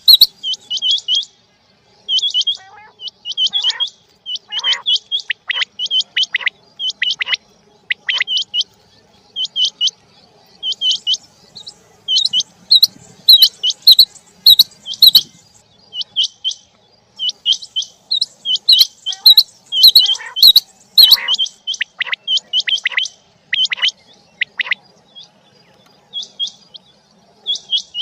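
Quail calling: loud, sharp, high-pitched notes repeated in quick runs, each run broken off by a short pause.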